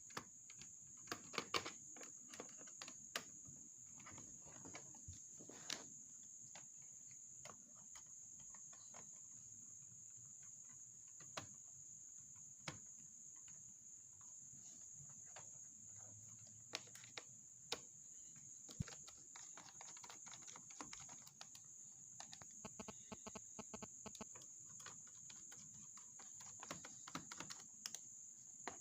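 Faint, scattered small clicks and taps of a screwdriver working the screws and rubber feet on a laptop's plastic base panel, over a steady high-pitched background tone.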